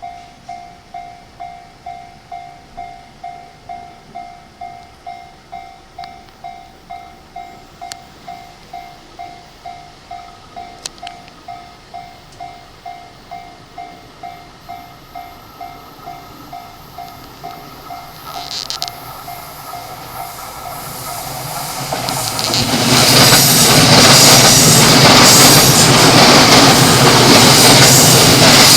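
Japanese level-crossing warning bell ringing in rapid, evenly spaced dings, fading out about sixteen seconds in, with a short high-pitched sound near eighteen seconds. From about twenty-one seconds a 15-car JR E217-series electric train comes through the crossing close by, and the loud run of its wheels on the rails rises and stays loud.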